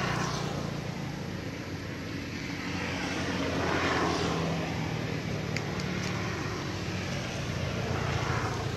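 Steady engine drone of motor traffic, swelling and fading about three times as vehicles pass.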